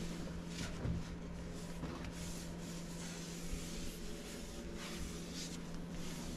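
Tack cloth wiped over a car body panel in short rubbing strokes, each a brief hiss, over a steady low hum.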